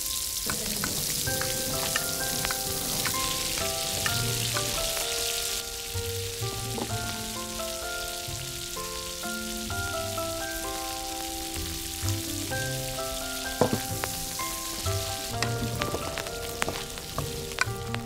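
Spinach puree and spices sizzling in a small iron kadai over a fire, a strong hiss for the first five or six seconds, then a quieter simmering hiss. Light background music of short melodic notes plays throughout, with a few small taps near the end.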